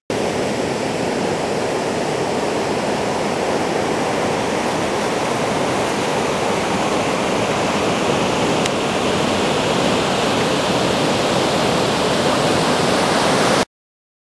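Ocean surf rushing steadily as waves break, growing slowly louder, then cutting off suddenly near the end.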